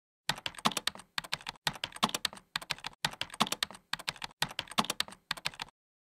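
Fast typing on a computer keyboard: runs of rapid keystrokes with short pauses between them, stopping about half a second before the end.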